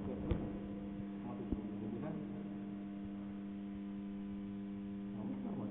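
Steady electrical hum, with two light clicks in the first couple of seconds.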